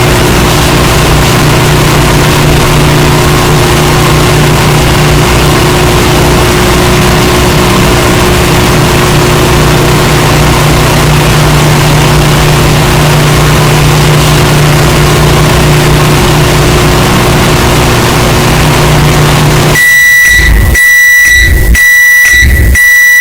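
Microwave oven running with a loud, steady hum; near the end the hum stops and the oven gives four high beeps about a second apart to signal that the heating is done.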